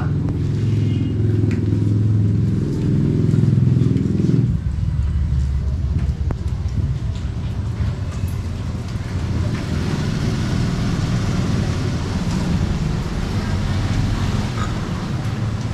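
An engine running with a steady low drone; its sound changes abruptly about four seconds in and carries on as a rougher rumble.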